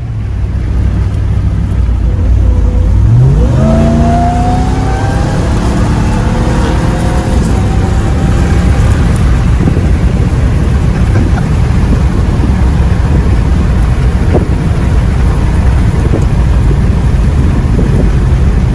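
Ram TRX's supercharged 6.2-litre Hemi V8, fitted with an S&B cold-air intake, heard from inside the cab under hard acceleration. About three seconds in its pitch climbs steeply, then keeps rising more gently for a few seconds. It then settles into a steady loud low rumble as the truck runs at speed on a gravel road.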